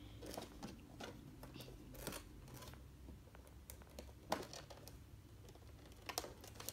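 Scissors snipping at packing tape on a cardboard toy box, with the box rustling as it is handled: a few short, sharp snips and crinkles at irregular intervals, the sharpest about four seconds in.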